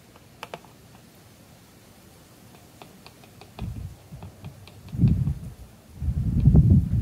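Light plastic clicks and taps from an oil bottle and funnel at a lawn mower engine's oil fill neck as the last of the oil goes in and the funnel is lifted out. From a few seconds in, low, uneven rumbling noise takes over and is the loudest sound.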